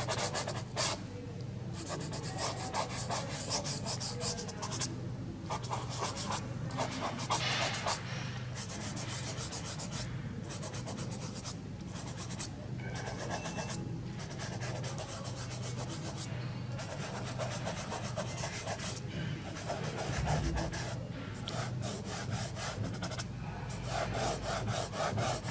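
A soft pastel stick scratching and rubbing over textured pastel paper in quick, short, repeated strokes, coming in spells with brief pauses, over a steady low hum.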